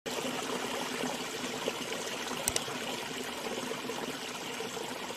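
Shallow stream running over stones: a steady babble of flowing water, with two brief clicks close together about two and a half seconds in.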